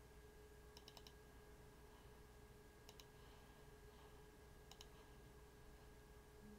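Faint computer mouse button clicks in three small groups, about one, three and five seconds in, over near-silent room tone with a faint steady hum.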